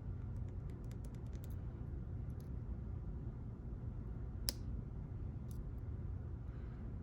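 Faint small clicks of a lock pick tapping and setting pins inside a JPM 405 pump lock, scattered and irregular, with one sharper, louder click about four and a half seconds in.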